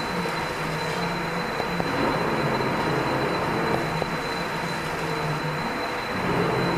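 Automatic 1 kg flour packing machine running: steady mechanical noise with a thin, high, constant whine, and a low hum that shifts back and forth between two pitches in a repeating cycle. A few light clicks come through.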